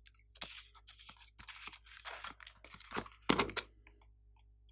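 Small plastic containers being handled and their lids twisted and pulled off: an irregular run of clicks and scrapes, the loudest a little over three seconds in.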